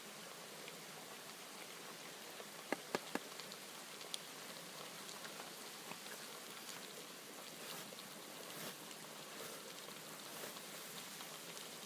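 Meat sizzling in hot oil with garlic, a steady fine crackle, with a quick run of three sharp spatters about three seconds in and one more a second later.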